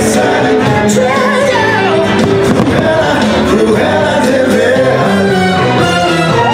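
Fireworks-show soundtrack: loud music with singing.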